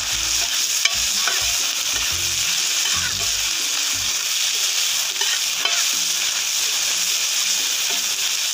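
Chopped onions, curry leaves and green chillies sizzling steadily in hot oil on a tawa, while a spatula stirs them, scraping and knocking against the pan mostly in the first half.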